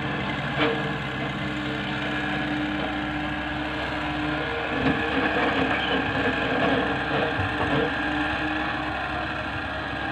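Diesel engines of a working tracked excavator and idling tractors running steadily. There is a sharp knock just over half a second in and another near the middle, and the engine noise grows louder for a few seconds after that.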